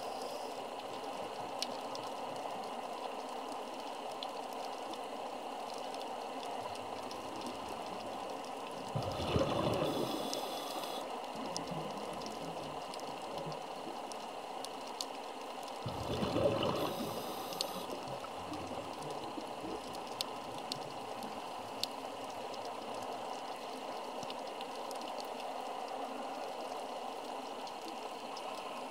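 Underwater ambience with scattered faint clicks, broken twice, about nine and sixteen seconds in, by a gush of scuba exhaust bubbles from a diver's regulator lasting about two seconds each.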